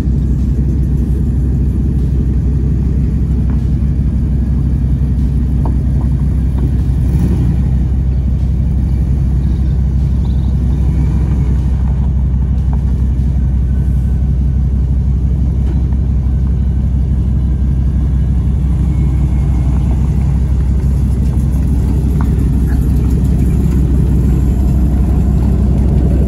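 Pickup truck engine running with a steady low rumble while the truck is driven.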